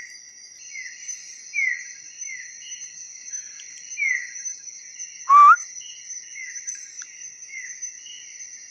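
Night rainforest chorus: a steady high-pitched insect drone, with short falling chirps from frogs or insects repeated about once a second. About five seconds in comes one loud, short rising whistle.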